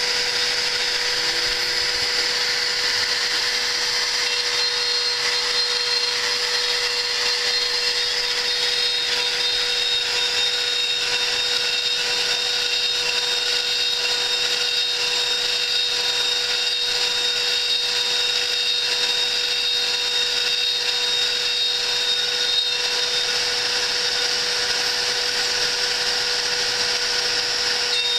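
CNC spindle running steadily with a steady whine as an end mill machines aluminium plates.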